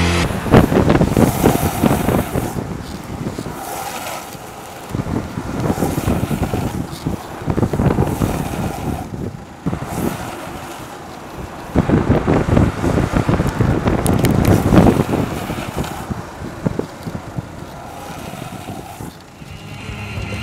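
Skateboard wheels rumbling over coarse asphalt at speed, with wind buffeting the microphone; the rough noise swells and fades several times.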